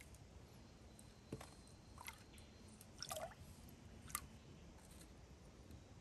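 A few soft drips and small plops of water, about one a second, as a clay bowl of dark grit is dipped into a water-filled clay trough.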